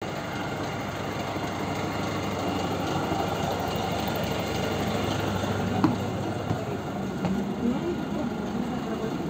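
PAZ 320405-04 (Vector Next) city bus standing at a stop with its engine idling steadily, with a single sharp knock about six seconds in.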